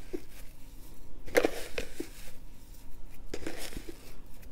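Salt being added to spiced raw beef mince in a glass mixing bowl, with a few light taps and clicks: a cluster between about one and two seconds in, and another about three and a half seconds in.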